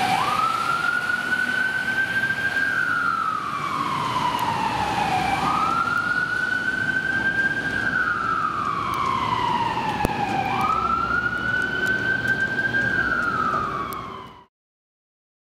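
Fire truck siren wailing from a tiller ladder truck on an emergency response, with the truck's engine running faintly underneath. It goes through three slow cycles, each jumping quickly up in pitch, holding high, then gliding slowly down. The sound cuts off suddenly near the end.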